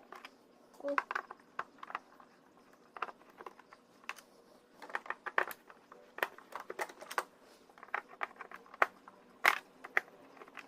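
Screwdriver taking the screws out of a Bissell vacuum's bottom plate: scattered small clicks and ticks, some in quick little clusters.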